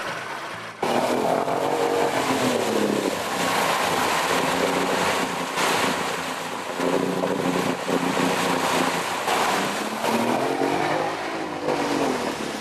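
Mercury outboard motor running at high revs, its pitch falling and rising again as the throttle is worked, with churning water from the propeller as the boat forces through a mat of floating water hyacinth. The engine comes in suddenly about a second in.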